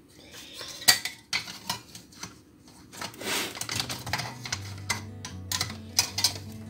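Thin sheet-metal shield plate being handled and fitted back onto an LCD monitor's metal chassis: scattered light metallic clicks and rattles.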